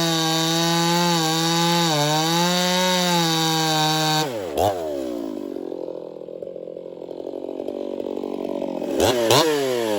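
Ported Echo CS-4910 50cc two-stroke chainsaw running at full throttle through a maple log, its pitch dipping slightly under load. About four seconds in it drops sharply to idle. Near the end it is blipped twice quickly.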